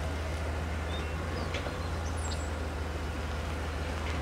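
SUV engine idling as the vehicle creeps slowly in reverse: a steady low hum.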